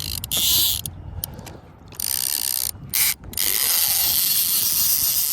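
Fishing reel giving a rapid ratcheting buzz in several short bursts, then a longer one of about three seconds near the end.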